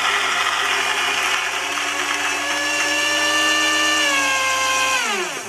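Gaggia Brera espresso machine's built-in coffee grinder running, grinding a small dose of beans, then spinning down with a falling whine and stopping near the end.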